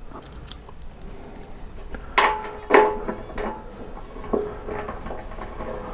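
Small metal parts clinking as a reflector bracket and nut are fitted onto a motorcycle fender's mounting bolt: a few sharp, ringing clinks, the two loudest about two seconds in, then lighter taps.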